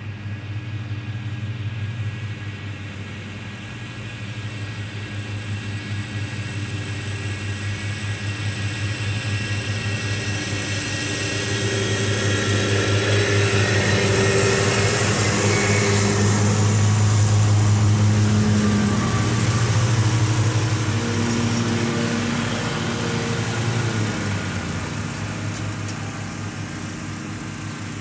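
Three Gravely zero-turn mowers mowing together, their engines and blades running steadily. The drone grows louder as they pass close by, is loudest a little past halfway, then fades as they move away.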